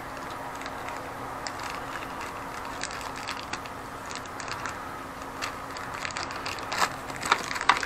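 Small plastic packaging crinkling and clicking as it is handled and opened by hand, in scattered short bursts that grow louder and more frequent near the end, over a steady low background hum.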